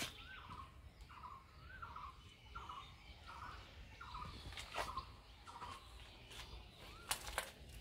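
A bird calling over and over, a short call with a rising hook about one and a half times a second, with a few sharp clicks among the calls.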